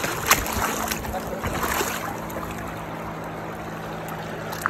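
Flowing river water, a steady rushing hiss, with a few sharp handling knocks against the phone in the first second.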